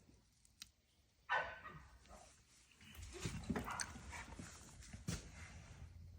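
Quiet sounds from a dog: one short, louder sound about a second in, then faint irregular noises.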